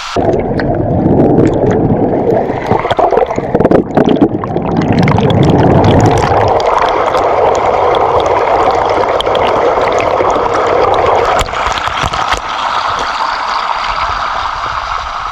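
Waterfall water rushing and splashing close by: a loud, steady rush of noise with scattered splashes, heavier and deeper in the first few seconds.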